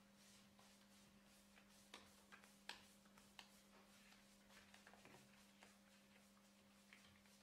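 Faint paintbrush strokes on a wooden door panel as linseed oil paint is brushed on: soft scratchy swishes of the bristles with small irregular ticks, the sharpest about two and three-quarter seconds in, over a steady low hum.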